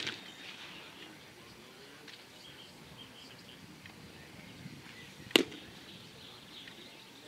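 Baseball pitches smacking into a catcher's mitt: a sharp pop right at the start, then one sharp pop about five seconds in, the loudest thing here.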